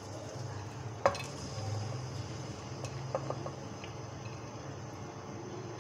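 Sliced onions being tipped from a plate into oil in an aluminium pressure cooker, with one sharp clink against the pot about a second in and a few lighter clicks around three seconds, over a steady low hum.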